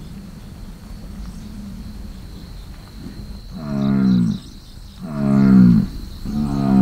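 Bison bellowing in the rut: three low, drawn-out calls, each dropping in pitch at its end, after a few quiet seconds. The third is the longest and is still going at the end.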